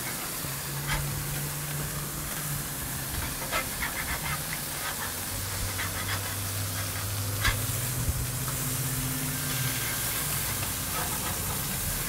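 Smashed 80/20 ground-chuck burger patties sizzling on a hot griddle just after being flipped, a steady frying hiss. A few sharp clicks come through, with a low steady hum underneath.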